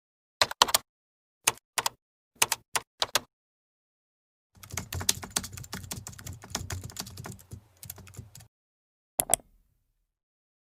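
Computer keyboard typing: a few separate keystrokes, then about four seconds of rapid continuous typing, then a final quick double click.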